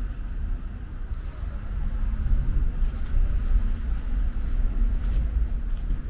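Footsteps of a person walking over a steady, fluctuating low rumble, with a few faint short high chirps.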